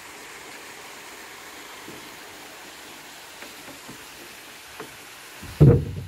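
Steady rushing of flowing water, with a few faint clicks and one loud, low thump just before the end.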